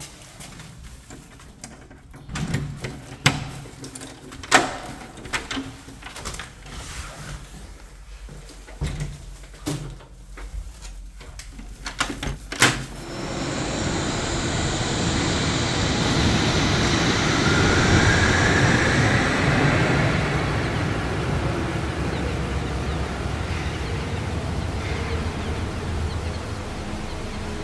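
Scattered clicks and knocks, then, about thirteen seconds in, the steady running noise of a Wuppertal Schwebebahn suspension-railway train. The noise swells for several seconds with a faint rising whine and slowly eases off.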